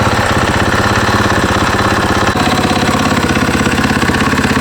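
Single-cylinder four-stroke engine of a 2015 KTM 500 EXC-F idling steadily through an Akrapovic end can, with a deep, even exhaust beat.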